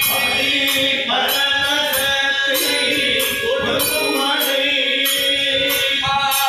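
Group devotional singing of a bhajan to a harmonium's held reedy chords, with a jingling percussion stroke keeping time about twice a second.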